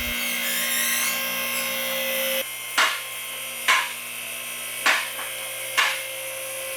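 Vehicle lift's electric-hydraulic pump running steadily, with sharp metal clacks about once a second from about two and a half seconds in: the safety locks catching as the lift rises.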